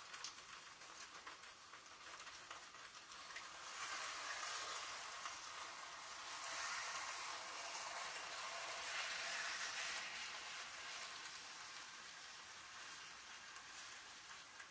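Seasoning sauce poured from a mason jar onto a whole chicken in a warm crock pot: a faint steady hiss that swells from about four seconds in and fades after about eleven seconds.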